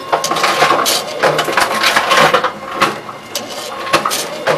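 Tomra T-63 reverse vending machine taking in a plastic bottle: its rollers and motor running with irregular rattling clatters of the bottle inside, over a faint steady hum.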